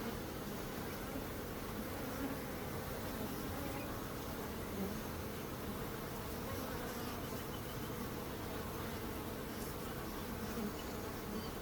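Swarm of honeybees buzzing in a steady, dense drone.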